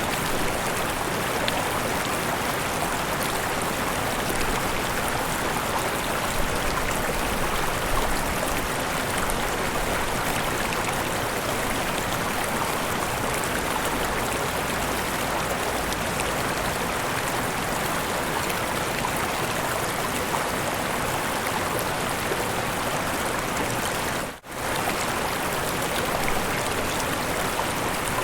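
Mountain river running over small waterfalls: a steady rush of water. The sound briefly drops out for a split second about 24 seconds in.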